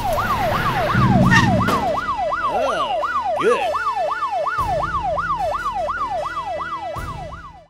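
Electronic police siren yelping rapidly up and down, about three sweeps a second, with a low rumble under it at times.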